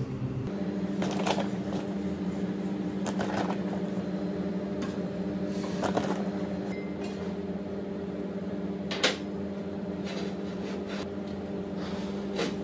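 Steady mechanical hum of a kitchen appliance running, with a few light clicks and taps from handling at the counter; the sharpest tap comes about nine seconds in.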